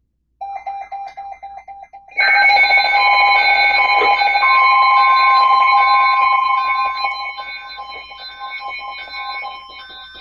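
Weather alert radio alarm tones sounding as a new warning comes in. A softer pulsing beep starts, then about two seconds in a loud mix of steady tones and quickly alternating beeps joins, and it fades over the last few seconds.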